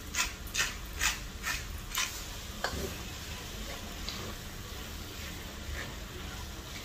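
Hand-twisted pepper mill grinding black pepper in short crisp turns, about two and a half a second, for the first two seconds. Then a spatula stirring ground beef and diced vegetables in a pot, with a soft knock a little before three seconds in and faint scraping after it.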